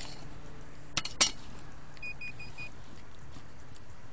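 Two sharp clicks about a second in as a digging tool strikes stony soil, then four quick high-pitched beeps from a metal detector about two seconds in, signalling a metal target in the hole.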